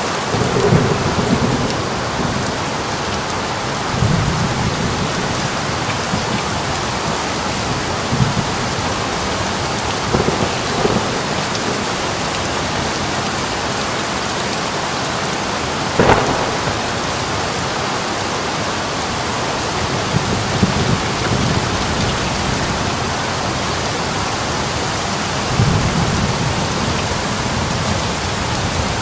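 Heavy rain pouring steadily, with thunder rumbling in low rolls every few seconds and one sharper, louder crack of thunder about halfway through.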